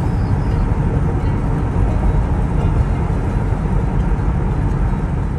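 Steady road noise of a car driving at highway speed, heard from inside the cabin: a continuous low rumble of tyres and engine.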